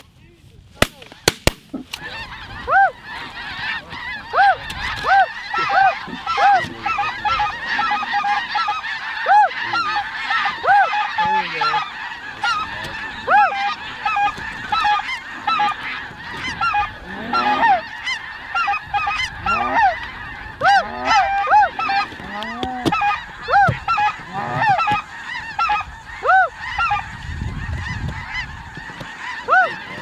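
Shotgun shots about a second in, then a large flock of snow geese calling continuously: many short, arched, high honks overlapping into a steady chorus.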